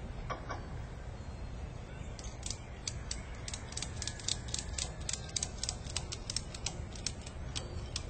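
Ratchet strap being cranked tight: a run of sharp ratchet clicks, several a second, starting about two seconds in and stopping near the end.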